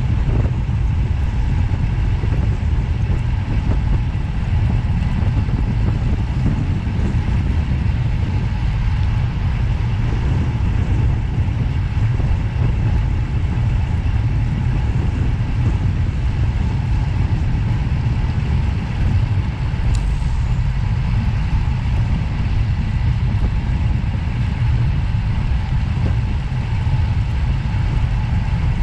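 Steady low rumble of a vehicle's running and road noise, unchanging in level.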